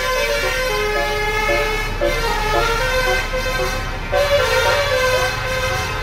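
A bus's multi-note musical air horn (telolet) playing a melody, its notes stepping up and down in quick succession, with a brief break about four seconds in.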